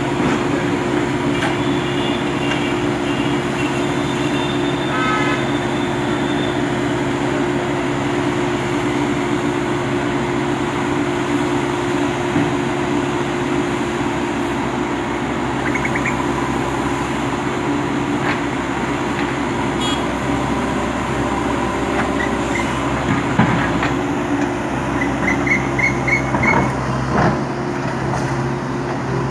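Bulldozer's diesel engine running steadily under load, with a few short knocks and a run of short high squeaks near the end.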